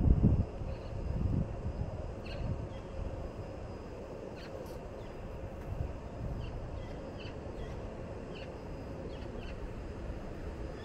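Open railway platform ambience. Low wind gusts buffet the microphone around the start, over a steady faint hum, with short bird chirps scattered through.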